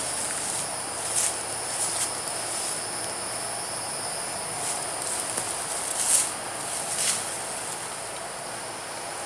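Steady high-pitched drone of insects, with the camouflage hammock fabric rustling a few times as it is handled and hung, loudest about six seconds in.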